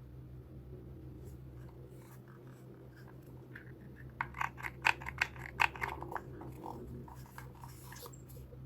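Hands handling and unpacking items from the box: scattered scratches and crinkles, with a quick cluster of sharp clicks and rustles about four to six seconds in, over a steady low hum.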